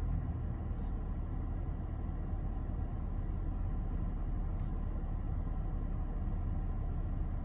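Car engine idling steadily, a low, even drone heard from inside the cabin.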